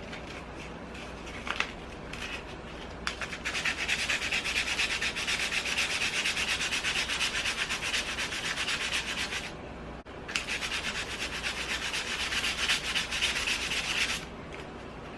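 Sandpaper rubbed over painted wood in rapid back-and-forth strokes to distress the paint. It starts with a few light scrapes, then settles into a steady fast rasping that stops briefly about ten seconds in and resumes.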